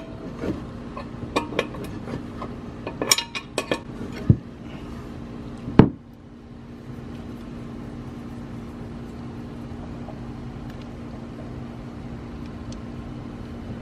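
Metal clinks and taps of fittings and a braided steel air line being worked onto an aluminium air tank, with a sharp knock a little before six seconds in. After that, a steady low hum.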